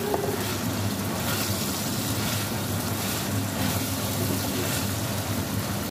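Diced chicken pieces sizzling steadily in hot oil in a frying pan, over a constant low hum.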